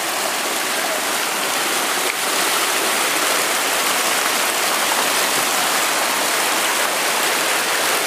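River water rushing and foaming over rock ledges close below, a steady loud whitewater rush.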